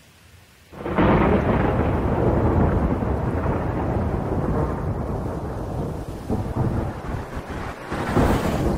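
A sudden clap of thunder about a second in that rumbles on and slowly fades, with a second swell of rumbling near the end.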